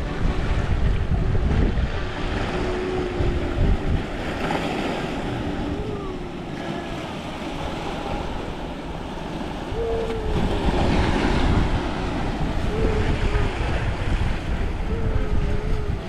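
Steady rushing noise with wind buffeting the microphone, and a faint wavering tone that comes and goes several times.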